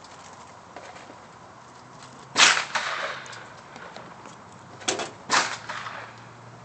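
Three gunshots: one loud shot about two and a half seconds in, then two more about half a second apart near five seconds, each with a short echo.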